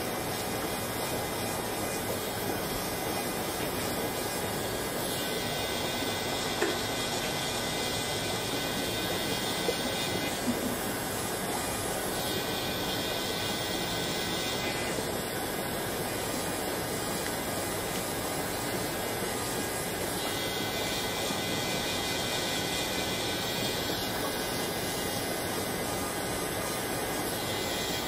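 Electric nail file (e-file) with a fine bit running steadily on toenail cuticles: a constant whirring hiss, with a brighter high hiss that comes and goes every few seconds.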